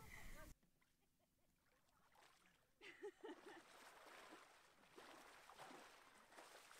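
A song cuts off about half a second in, leaving near silence. About three seconds in comes a short faint voice, then faint splashing of water as a person thrashes about lying in shallow sea water.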